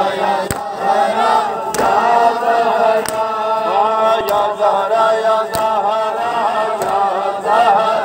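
A crowd of men chanting a mourning lament in unison while beating their chests together (matam). About six sharp slaps of hands on chests land at a steady beat, roughly one every second and a quarter.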